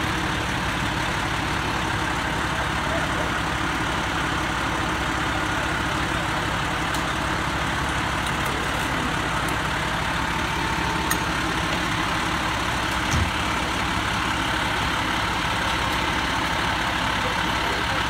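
Pierce fire engine's diesel engine idling steadily, with a brief knock about two-thirds of the way through.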